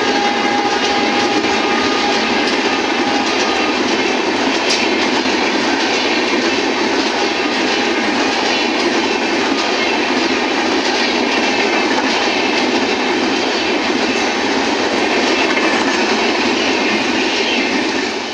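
Passenger coaches of a superfast express train running through a station at speed: a steady loud rush of wheels on rail with clickety-clack, dropping off right at the end as the last coach goes by.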